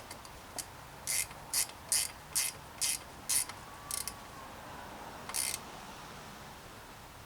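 Ratchet pawl clicking in short bursts, about two a second for seven strokes, then two more spaced further apart.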